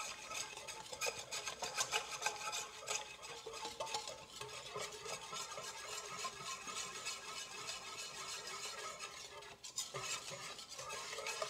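Wire whisk beating a thin flour-and-water batter in a stainless steel mixing bowl: a fast run of light scraping ticks of the wires against the metal, with a brief break near the end.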